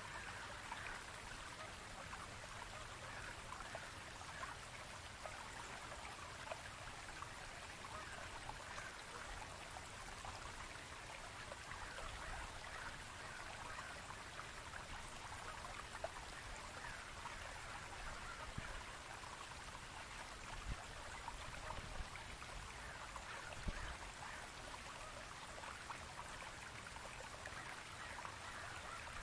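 Steady rushing of flowing water from a stream, with a few brief faint knocks.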